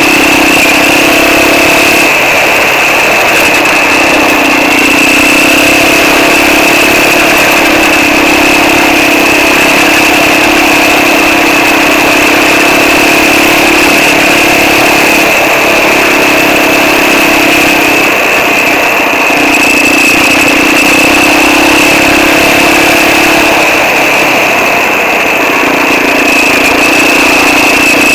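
Quad (ATV) engine running under way on a dirt track, its note stepping up and down every few seconds as the throttle changes, with a steady high whine over it.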